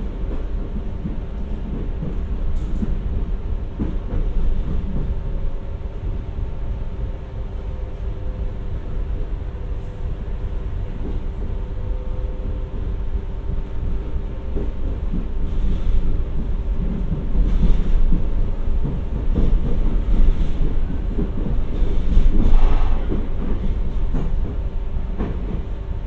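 Renfe Class 447 electric commuter train running on the line: a steady low rumble of wheels on track with a steady hum from the train and occasional clicks from the track, growing somewhat louder in the second half.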